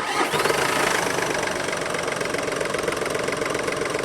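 2007 SEAT Ibiza's turbocharged 1.4-litre 51 kW diesel engine starting: it catches suddenly at the start and then runs steadily at idle.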